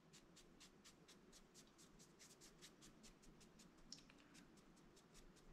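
Stiff brush sweeping stray embossing powder off a watercolor paper card panel in quick, faint scratchy strokes, about six or seven a second.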